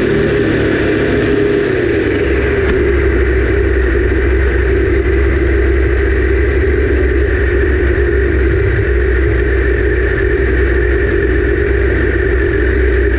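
Triumph Daytona 955i's inline three-cylinder engine running under way at a steady cruise, its note dipping briefly about two seconds in and then holding, with steady wind noise on the bike-mounted camera.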